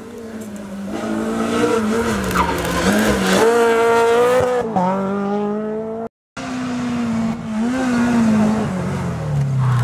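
Rally car engines on a special stage: one car revs hard through several quick gear changes as it approaches and passes. After a short break, a second rally car's engine comes closer, its pitch falling steadily as it slows toward the end.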